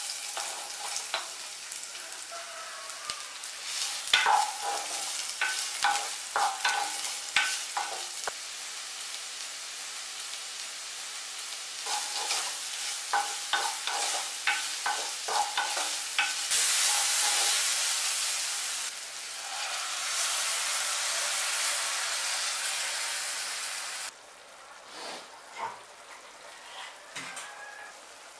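Chopped onions hit hot oil in a clay pot and sizzle at once, then fry with a steady hiss while a wooden spatula stirs them, knocking and scraping against the pot in bursts. Past the middle a louder, even sizzle takes over, and near the end it drops away suddenly to a much quieter simmer.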